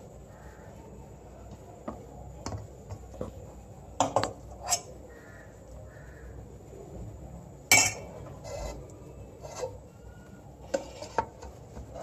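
Metal spoon scraping and tapping against a steel pot and a plastic chopper bowl as a cooked chicken mixture is transferred: scattered clinks and knocks, the loudest about four and eight seconds in.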